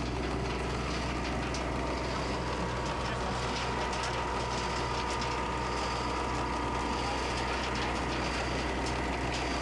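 Placer gravel wash plant running: a steady mechanical drone from its engines and conveyor, with a constant high whine on top.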